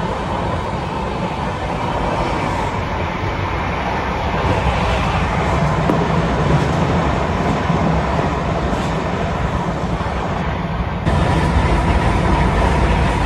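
Steady rumble and rush of an express train running at speed, heard from inside a closed passenger coach. A train passing on the adjacent track adds to the noise, which steps up suddenly about eleven seconds in.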